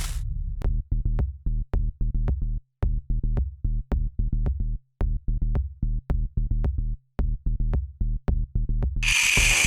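Electronic music with a drum-machine beat and bass, choppy and broken by short gaps. A loud hissing noise comes in near the end.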